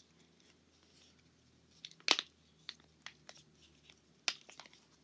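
Fidget toys being handled: scattered sharp clicks and taps, the loudest about two seconds in.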